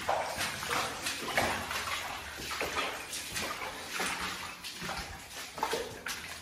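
Footsteps of rubber boots splashing through shallow water on a wet mine-tunnel floor, at a steady walking pace of about one and a half steps a second.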